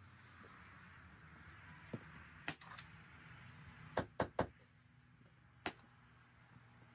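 Sharp cracks of a ceiling panel being fastened to the frame, about eight in all: a few about two and a half seconds in, three in quick succession about four seconds in, and one more near the end.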